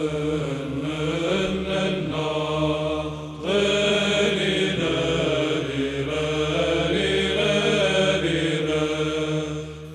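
Orthodox church chant: a slow, drawn-out sung line moving over a steady low held note, with a short break about three seconds in. It is the chanted response that follows the Gospel reading.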